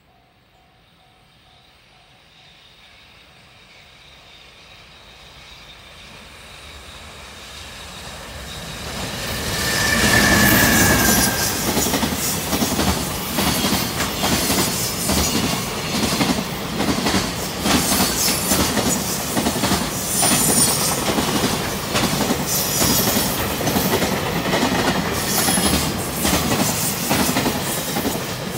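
Freight train hauled by an EH500 electric locomotive approaching and passing close by: a rumble that builds for about ten seconds, with a brief falling whine as the head end goes by. Then the container wagons run past with a steady, rhythmic clickety-clack of wheels over rail joints and occasional high wheel squeals.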